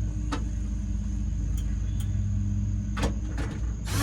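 Steady low mechanical hum with a thin high whine over it, broken by a few sharp clicks or taps, one about a third of a second in and a couple near the end.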